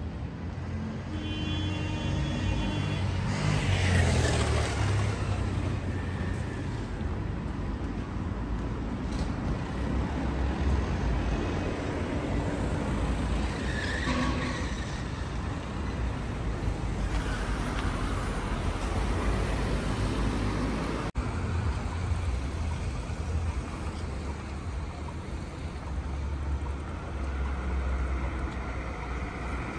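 Street traffic: a steady rumble of car engines and tyres, with one vehicle passing close and loud about four seconds in.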